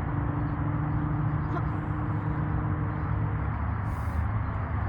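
Steady low mechanical hum over a noisy background. Its pitch drops a little about three and a half seconds in, and a brief hiss comes about four seconds in.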